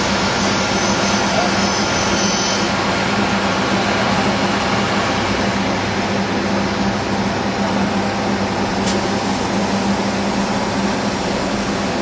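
Octagonal-drum honeycomb paper machine running: a steady mechanical hum with a constant low drone. A high thin whine drops out about two and a half seconds in.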